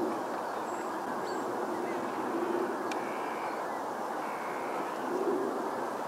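A steady outdoor background rush with a faint low hum that comes and goes, and a few brief, faint high bird calls in the distance.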